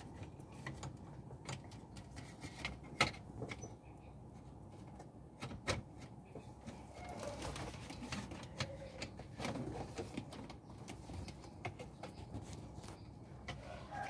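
Scattered small clicks and taps of a hand tool and plastic and metal parts as a broken, jammed car gear shifter assembly is worked on by hand, with two sharper clicks about 3 and 6 seconds in.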